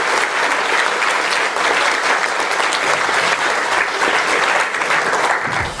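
Audience applauding: dense, steady clapping that cuts off suddenly near the end.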